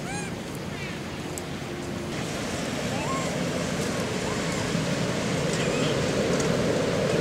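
A steady rushing noise that grows louder, with a few short chirping calls over it near the start and in the middle.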